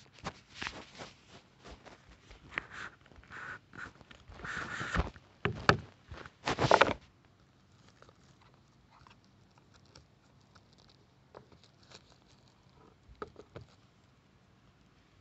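Small cardboard product box being handled and opened: a run of rustles, scrapes and clicks for about seven seconds, loudest around five to seven seconds in, then only a few faint taps.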